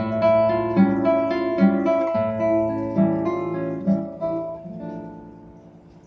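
Background music on acoustic guitar: plucked notes in a regular repeating pattern, fading out near the end.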